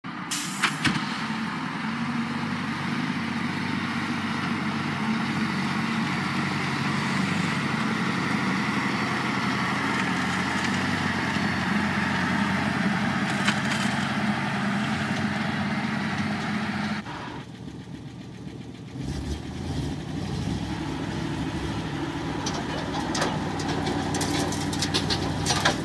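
Heavy tipper truck's engine running steadily while its raised dump body unloads dirt. About seventeen seconds in the sound cuts abruptly, first to something quieter, then to a second, smaller old dump truck's engine running.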